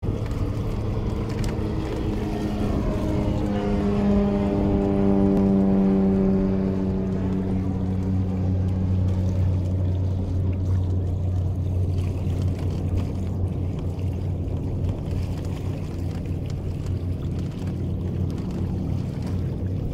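Steady drone of a passing engine, loudest about four to seven seconds in, its pitch pattern sweeping as it goes by. Under it is the wash of water and wind around a sailing kayak.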